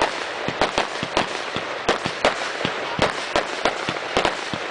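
Fireworks finale barrage: aerial shells launching and bursting in quick succession, about three or four sharp bangs a second over a steady hiss.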